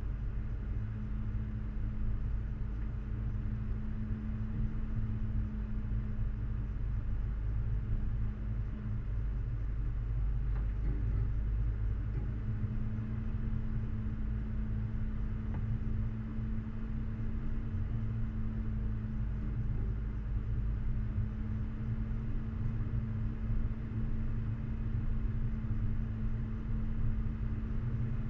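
A 4x4's engine running steadily under load as it climbs a rough dirt track, with a deep rumble from the vehicle over the ruts. The engine note sags slightly a little before halfway and then holds steady again.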